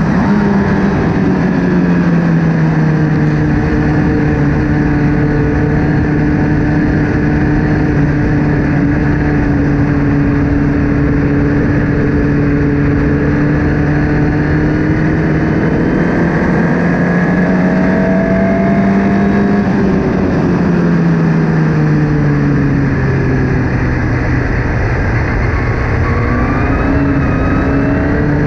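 A Formula Ford race car's engine runs hard throughout, over a steady rush of noise. Its pitch drops about a second in, then climbs slowly for most of the stretch, falls sharply about two-thirds of the way through, and rises again near the end, as the car accelerates, shifts and brakes.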